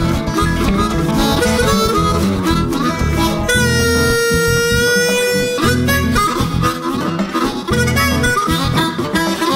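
Background music, with one long held note lasting about two seconds a little before the middle.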